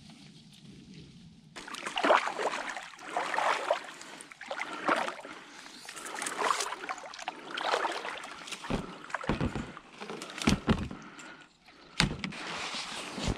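Rowing: oar strokes swishing and splashing through the water, starting about a second and a half in and repeating roughly every second and a half, with a few low thumps in the second half.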